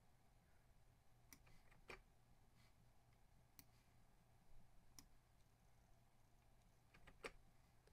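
Near silence: quiet room tone with a low steady hum and about six faint, scattered clicks of a computer mouse.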